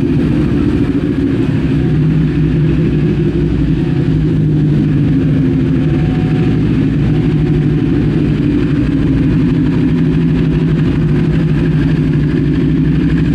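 A 400 cc motorcycle engine running steadily at idle, a low, even drone that holds the same pitch throughout.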